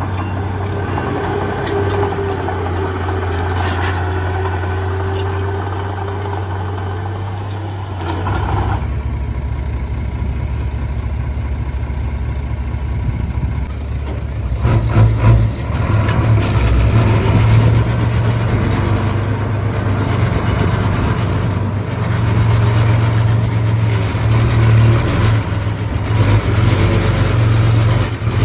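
Heavy diesel engine running steadily, its low note shifting about eight seconds in, then getting louder and more uneven from about fifteen seconds as it comes under more load.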